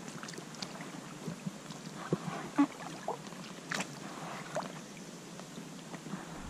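Double-bladed kayak paddle strokes on calm water: the blades dipping and pulling, with drips and light splashes and small scattered knocks over a faint steady hiss.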